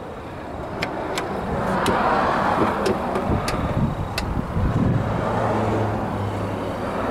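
Another car passing nearby: its tyre and engine noise swells and fades, with a low engine hum toward the end. A few light clicks sound in the first half.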